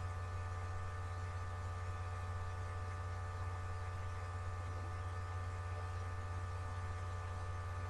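Steady electrical hum and buzz: a low even drone with fainter steady higher tones above it, unchanging throughout.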